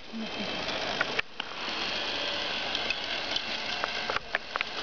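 Toy fire engine's small electric motor and plastic gears whirring as its ladder is worked, with scattered clicks; the motor stops briefly about a second in and then runs again.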